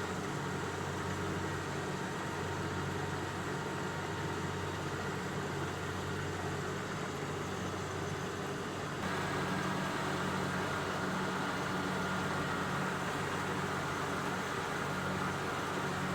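An engine running steadily, its sound shifting and growing a little louder about nine seconds in.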